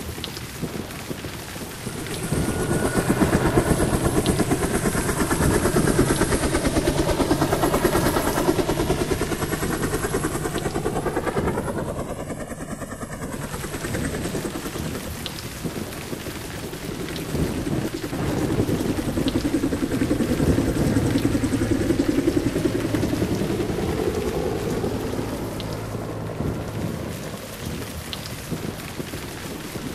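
Heavy rain with rumbling thunder, a sound effect: a steady rain hiss that swells up twice with deep rumbles, and a sweeping whoosh near the middle.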